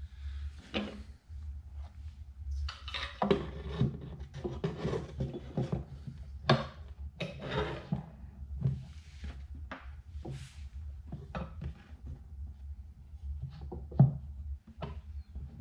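Wooden luthier's cam clamps being handled and set on a guitar bridge during its glue-up: scattered wood-on-wood knocks, rubs and clicks, with one louder knock near the end. A steady low hum runs underneath.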